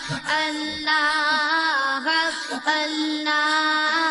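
Naat singing: a male voice holding wavering melodic phrases over a steady low drone, with short breaks between phrases.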